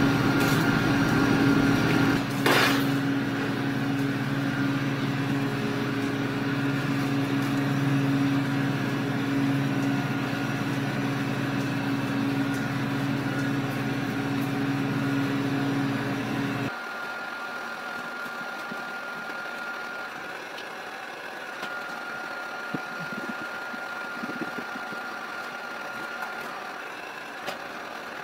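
Heat gun running with a steady hum while vinyl wrap film is heated, switched off a little past halfway. A single sharp knock comes about two and a half seconds in.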